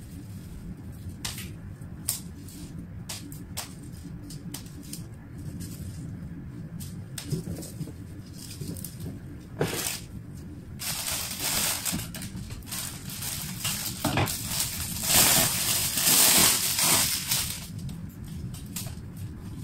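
Flower stems and leaves being handled and pushed into a glass vase: scattered small clicks and taps, then a louder stretch of crackly rustling lasting several seconds, starting about halfway through.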